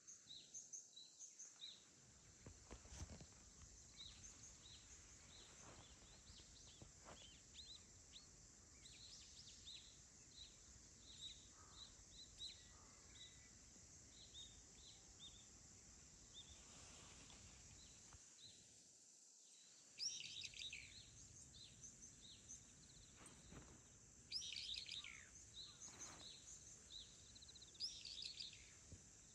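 Faint birdsong: a long run of short repeated chirps, with louder, busier calls about two-thirds of the way in and near the end, over a steady high hiss.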